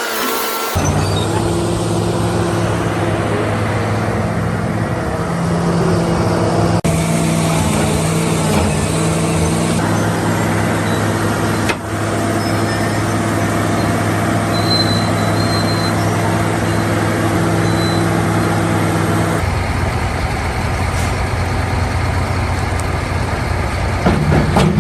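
Heavy diesel engine running at a steady speed with a constant hum. About 19 seconds in the sound changes abruptly to a rougher engine noise without the steady pitch.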